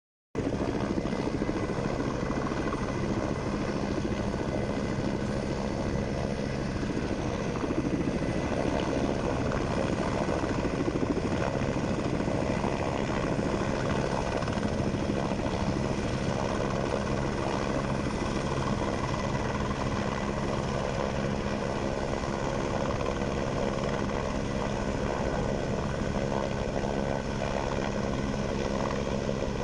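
Firefighting helicopter running steadily, its rotor chopping fast over an even engine hum, with no break or change in level.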